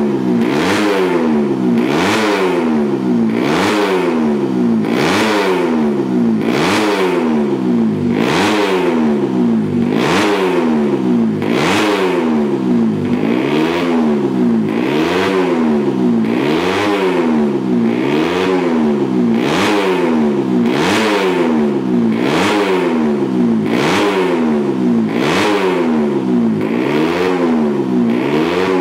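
Yamaha MX King race underbone's single-cylinder four-stroke engine revved up and down again and again in a steady rhythm, about once every second and a quarter, with the throttle blipped to warm it up on the stand.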